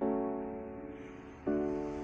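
Background music: sustained keyboard chords, one struck at the start and a new chord about one and a half seconds in, each fading slowly.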